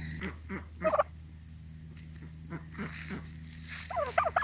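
Young Black Spanish turkey calling: a few short calls about a second in, then a quick warbling run of wavering calls near the end, a juvenile tom learning to gobble.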